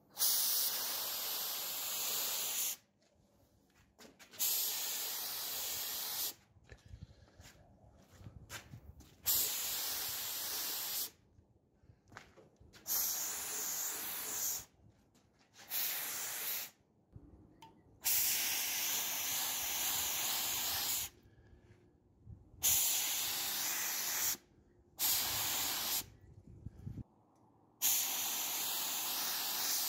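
Compressed-air paint spray gun hissing in about nine bursts of one to three seconds each, starting and stopping sharply as the trigger is pulled and released while spraying black paint.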